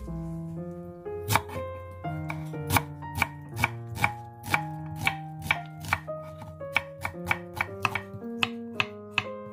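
Kitchen knife chopping on a wooden cutting board, sharp strokes about twice a second starting about a second in, over background music with a simple melody.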